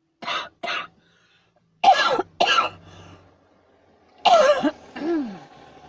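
A person coughing in a fit: two light coughs, then two hard coughs about two seconds in, and two more near the end, the last trailing off in a falling voiced sound.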